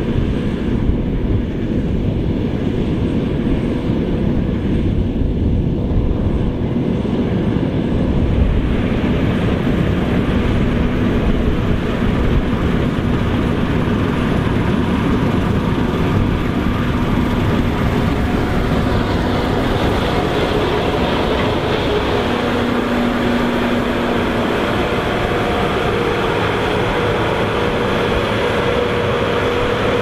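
Case IH combine harvester running under load while cutting wheat: a steady drone of engine and threshing machinery, with faint steady hums that come and go.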